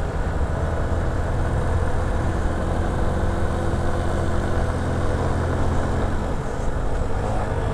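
Italika Z150 motorcycle's single-cylinder engine running steadily while riding, heard from on the bike with rushing road and wind noise. The engine note shifts slightly near the end.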